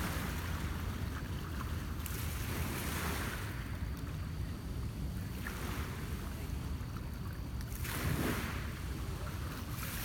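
Small lake waves washing against a rocky shore, one wash every two to three seconds, over a steady low rumble of wind on the microphone.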